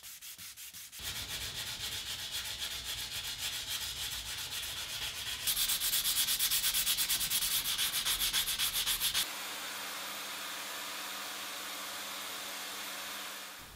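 Hand sanding with a sheet of sandpaper on a carbon-fibre-wrapped joint in wooden table legs: quick, even back-and-forth strokes that grow louder about halfway through. About nine seconds in, the sanding stops suddenly and a vacuum cleaner runs steadily with a high whine, drawing the sanding dust off through its hose.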